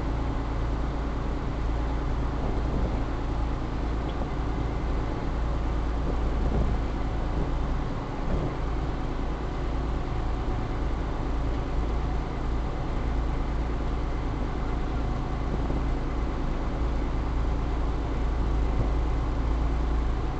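A small river ferry's engine running steadily, a constant low hum with steady engine tones over it.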